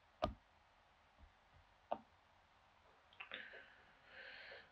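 Sparse, sharp clicks of a computer mouse button: one about a quarter second in, a fainter one near the two-second mark, with a few small ticks between, then a soft hiss near the end.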